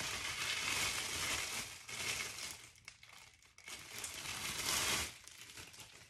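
Clear plastic wrapping crinkling as it is pulled off a wax warmer by hand, in several bursts of rustling that die down about a second before the end.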